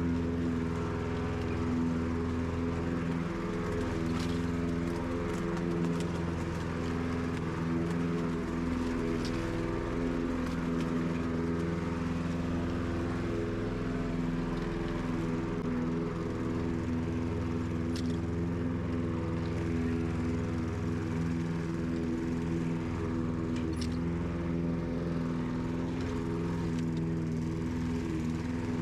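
Petrol walk-behind rotary lawn mower running at a steady speed while being pushed over grass, its small single-cylinder engine giving an even hum with a few faint clicks.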